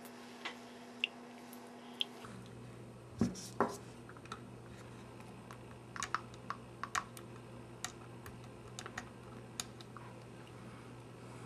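Small, sharp metal clicks and taps of fingers and a small tool on the Bolex D8L 8mm camera's film claw mechanism and its tiny spring, irregular, with two louder knocks a little after three seconds in.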